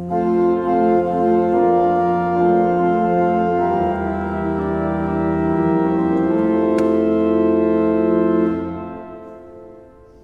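Church pipe organ playing loud held chords over a low pedal bass note, the harmony changing a few times. The final chord is released about eight and a half seconds in and dies away in the church's echo.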